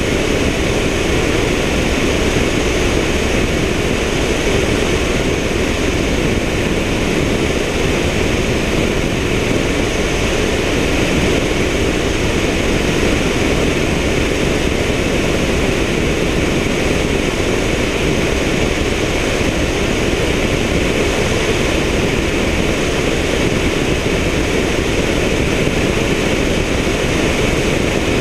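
Helicopter in flight, heard through a camera mounted on its outside: a steady, loud drone of rotor and engine mixed with rushing air, unchanging throughout.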